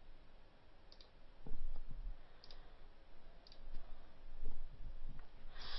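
A few light computer mouse clicks, spaced about a second apart, with soft low thumps in between and a short burst of hiss near the end.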